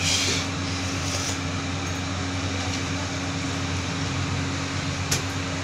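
Steady hum inside a passenger lift car, its ventilation fan and machinery running: a low drone with a steady higher tone over it. One sharp click about five seconds in.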